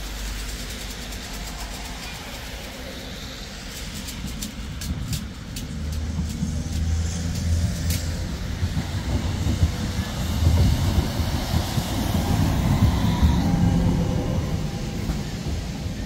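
Tram running on the rails: a low rumble that builds about six seconds in, is loudest around ten to fourteen seconds in, then eases off, with faint high clicks.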